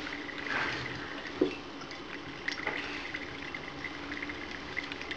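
Distillate trickling in a steady thin stream from a pot still's output hose into a glass jar. There is a brief knock about a second and a half in.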